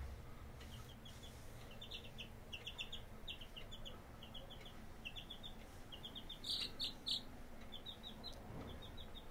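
Domestic chick peeping: short high peeps in quick runs of three or four, with two louder, sharper calls about two-thirds of the way through.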